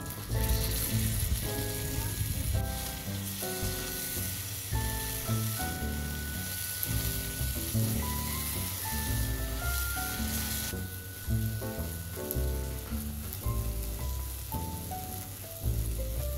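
Chicken pieces sizzling as they fry in oil in a nonstick frying pan while being turned with tongs; the sizzle stops about two-thirds of the way through. Background music plays throughout.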